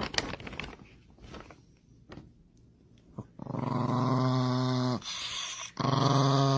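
Small dog growling in two long, steady growls: the first starts about three seconds in and breaks off for a moment before the second. Faint light clicks and rustles come before the growls.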